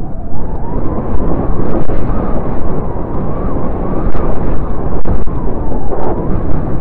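Wind buffeting the microphone of a camera carried aloft on a kite: a loud, constant, rough low rumble, with a faint wavering whistle above it.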